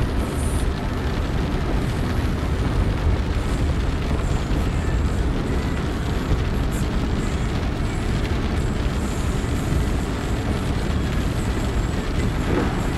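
Steady noise inside a car's cabin while driving through heavy rain: engine, tyres on the wet road and rain on the body blend into one constant, bass-heavy rumble.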